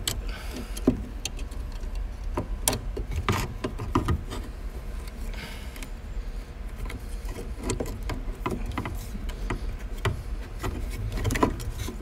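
Irregular metallic clicks and taps of a 1964 Studebaker Avanti's trunk latch and release cable clip being worked into place by hand, over a steady low hum.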